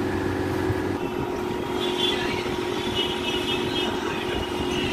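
Electric suction machine for wet cupping running with a steady hum.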